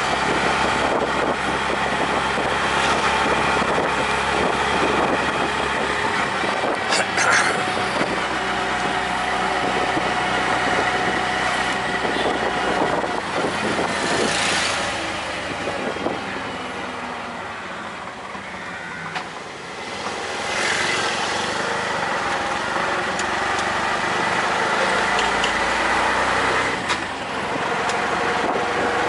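Auto-rickshaw's small engine running as it drives along in traffic, heard from inside the open cab with road and passing-traffic noise. The engine eases off a little past halfway, then picks up again.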